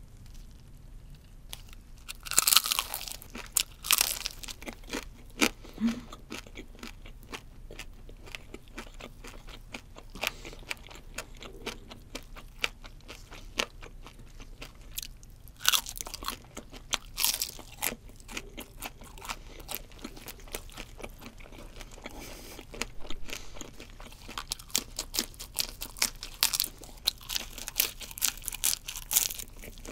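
Close-miked crunching and chewing of fried shrimp. Sharp, crackly bites come in clusters: about two seconds in, around the middle, and near the end.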